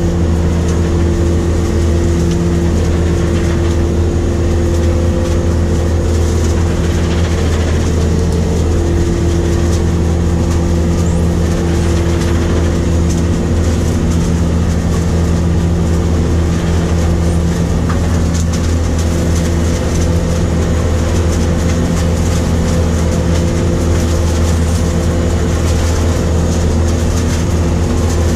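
New Holland grape harvester running steadily while picking along a vine row, heard from inside the cab: a constant low engine drone with a steady hum and an even wash of machinery noise that does not change.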